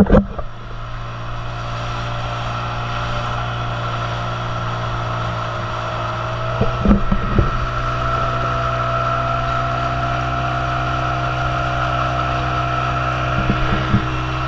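Outboard motor of a speedboat running steadily at speed while towing a banana boat, over a rush of water and wind. A few short thumps at the start, about seven seconds in, and near the end.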